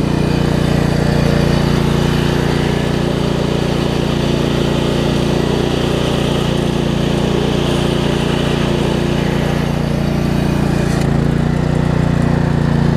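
Craftsman LT1750 riding mower engine running steadily, with the electric PTO clutch engaged but the deck belt too loose to turn the blades. About eleven seconds in the sound changes, the higher hiss dropping away.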